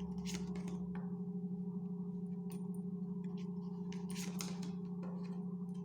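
Steady low hum held on one pitch, with a few light clicks and rustles over it.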